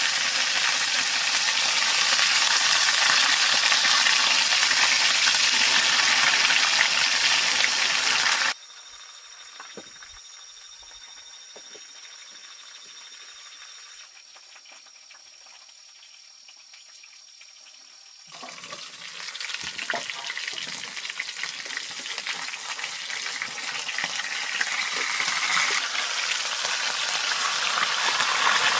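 Food sizzling and being stirred in a hot pan, a loud even hiss that cuts off abruptly about a third of the way in. There is a quiet stretch with faint steady high-pitched tones, then the sizzling starts again and slowly grows louder.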